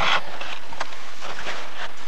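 A few short scrapes and clicks of ice chips and snow over a steady hiss, as a hand auger is lifted out of a freshly drilled ice hole and the hole is cleared by hand.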